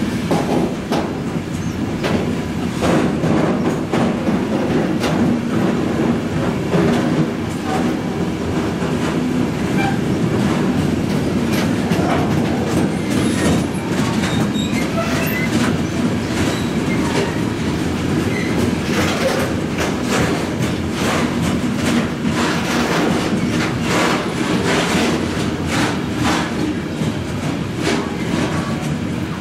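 Container freight train wagons rolling past: a steady heavy rumble with repeated clatter of wheels over rail joints, and a few short wheel squeals. The sound eases slightly near the end as the train draws away.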